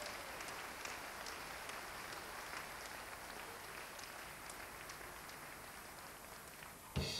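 Audience applauding, a steady wash of many clapping hands that slowly fades. A live dance band strikes up loudly at the very end.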